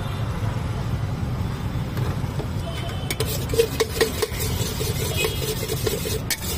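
Steady low rumble of road traffic. From about three seconds in, a metal spoon scrapes and clinks repeatedly against a stainless steel pot as food is stirred and tossed in it.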